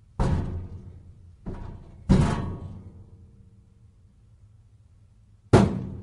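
File drawers banging: four hard knocks, the second one lighter, each with a ringing decay. The last comes after a pause of about three seconds.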